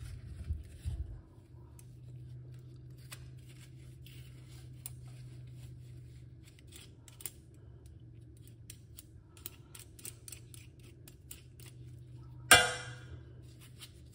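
Hand-held vegetable peeler scraping skin off a root vegetable over a stainless steel saucepan: quick light scraping strokes and clicks over a steady low hum. Near the end comes one sharp knock with a short ring.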